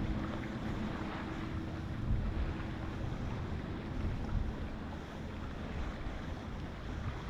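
Wind buffeting the microphone: a steady, uneven low rumble with a hiss of open-air noise.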